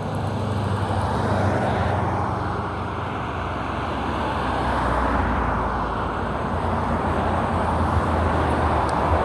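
Steady road-vehicle noise: a low hum under a rushing sound.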